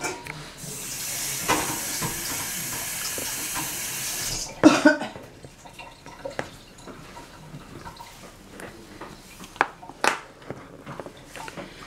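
Kitchen tap running for about three and a half seconds, ending in a short loud sound; after that, scattered light clicks and knocks of kitchen things being handled.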